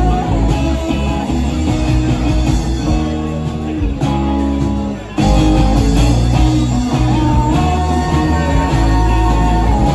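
Live rock band playing: electric guitars and drums with a sung vocal. The music dips briefly about halfway through, then comes back in louder.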